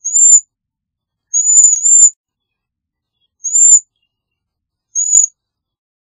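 Cedar waxwing giving five short, very high-pitched calls, each note rising slightly and dropping back. A single call comes at the start, a pair comes back to back about a second and a half in, and single calls follow at about three and a half and five seconds.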